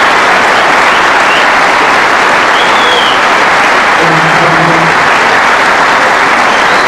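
Large audience applauding loudly and steadily.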